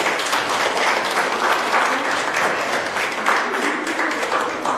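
Audience applauding, many hands clapping together. The applause begins to die down near the end.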